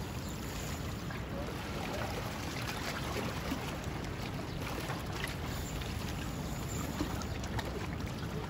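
Steady rushing of wind and water along a rocky shoreline, with a few faint clicks.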